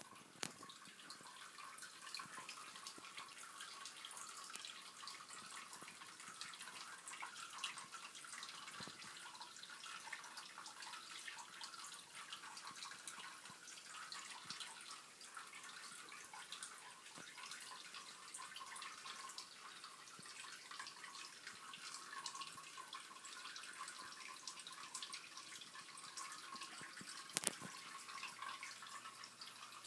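Faint steady hiss with scattered light clicks and a sharper knock near the end, typical of a handheld phone being moved and handled.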